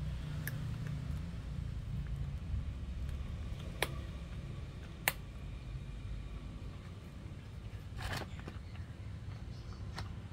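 A puppy chewing cooked duck bones, with a few sharp cracks and crunches spread through, over a steady low background rumble.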